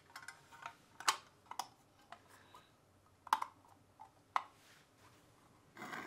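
Light clicks and taps of a sheet-metal dishwasher terminal box and its cover being handled and fitted together, scattered irregularly, the sharpest about a second in and again past three seconds.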